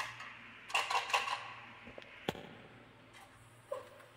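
Light knocks and rattles of a plastic toy truck being pushed and moved across a hard tabletop: a quick cluster about a second in, then single sharp clicks a little after two seconds and near the end.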